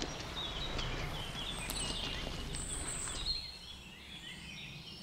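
Birds chirping, short falling chirps repeated many times, over a low steady rumble of outdoor background noise that drops away about three seconds in.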